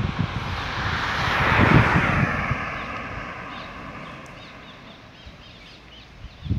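A car passes and drives off, its tyre and engine noise swelling to a peak about two seconds in and then fading away. Small birds chirp faintly.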